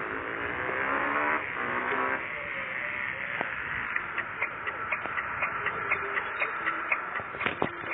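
Telolet basuri multi-tone musical horn on a motorcycle playing a short stepped-pitch melody for about two seconds. From about four seconds in there is a steady run of light ticks, about three a second.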